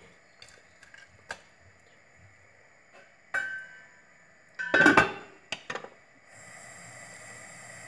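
A spatula taps against a metal wok. A stainless-steel lid clatters and rings as it is set on the wok, loudest about five seconds in. From about six seconds a steady hiss starts as the gas burner is turned up.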